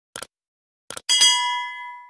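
Subscribe-button animation sound effect: a short click, then two quick clicks about a second in, followed by a bright bell-like ding that rings on and fades away.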